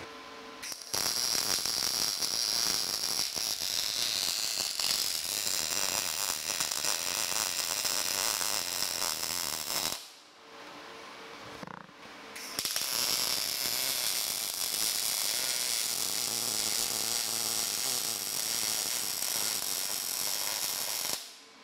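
MIG welding arc crackling steadily as a 3/8-inch steel flat bar is welded to an angle-iron frame. There are two welds of about nine seconds each, with a pause of about two seconds between them.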